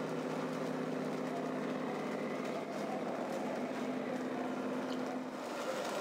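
Radio-controlled model trucks running, a steady engine-like hum with several held tones that shifts slightly near the end.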